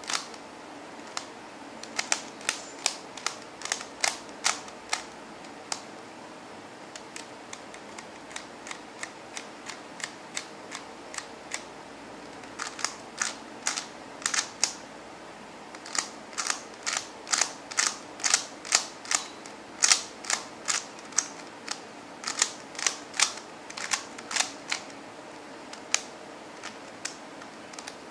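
Stickerless plastic QiYi MoFangGe Master Pyraminx being turned by hand: its layers click and clack as they snap round, in quick runs of sharp clicks. The turns are softer for a stretch in the middle, then come louder and faster.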